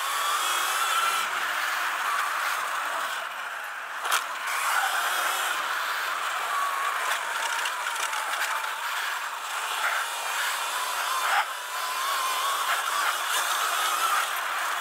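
Sur-Ron Light Bee electric dirt bike riding over a gravel trail: a faint motor whine rising and falling with the throttle over a steady rush of wind and tyre noise, with the chassis rattling and a couple of sharp knocks from bumps.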